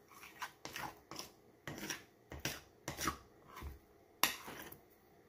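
Hands working soft biscuit dough in a glass mixing bowl: a string of short, irregular rubbing strokes, the sharpest one about four seconds in.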